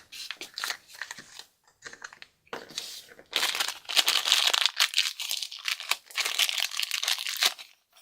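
A crinkly wrapper is handled and pulled open by hand. It crackles in scattered bursts at first, then thickly from about three seconds in, stopping near the end.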